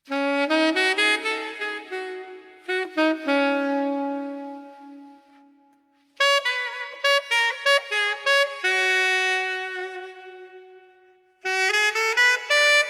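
Instrumental music led by horns, saxophone-like: three phrases of held notes, each starting sharply and dying away, the first entering suddenly out of silence.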